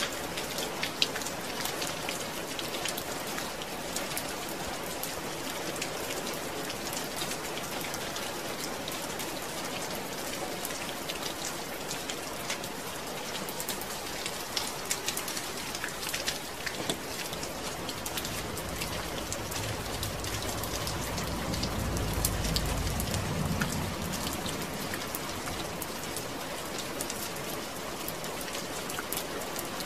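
Steady rain falling, with many small drops pattering on a surface. A low rumble swells and fades about two-thirds of the way through.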